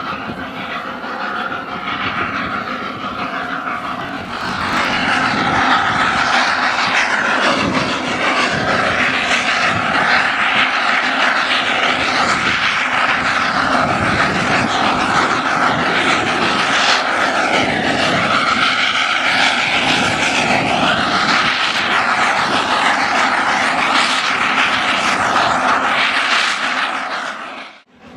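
Snowdon Mountain Railway rack train running close by: a loud, steady mechanical running noise that grows louder about four and a half seconds in and cuts off suddenly near the end.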